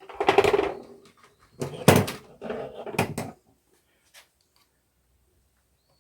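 Hand tools and metal parts knocking and clattering while a backhoe hydraulic control valve is taken apart: a rustle and clunk at the start, one sharp knock about two seconds in, then a few lighter knocks.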